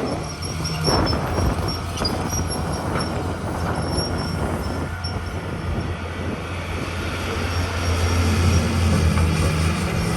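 Heavy diesel earthmoving machinery running with a steady low drone, and a repeated high squeak through the first half. The engine grows louder about eight seconds in.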